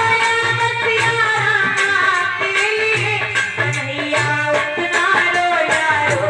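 Indian devotional folk music: a sustained, gliding melody over a steady hand-percussion beat.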